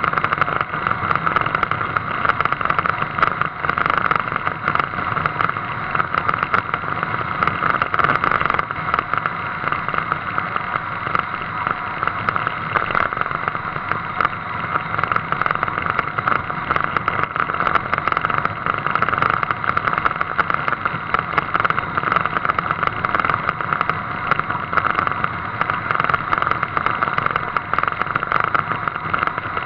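A car driving along at steady speed: a constant rush of wind and road noise picked up by a camera mounted on the outside of its front wing, with no rise or fall in pitch.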